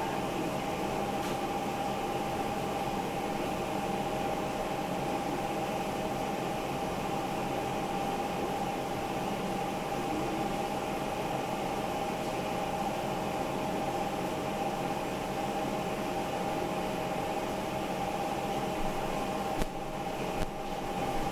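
Steady whirring hum of a running kitchen appliance fan, holding two steady tones without change. A couple of light knocks come near the end.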